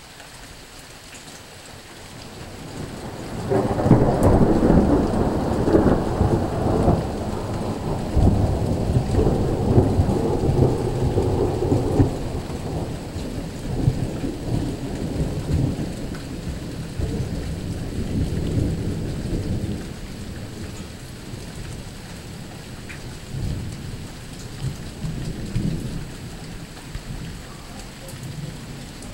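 A long roll of thunder over steady rain: it builds about three seconds in, stays loudest for the next several seconds, then rumbles on in waves and slowly fades.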